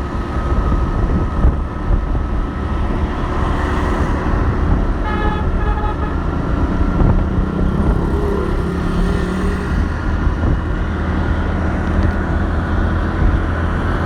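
City street traffic: a steady rumble of engines and tyres, with a car horn tooting twice in quick succession about five seconds in.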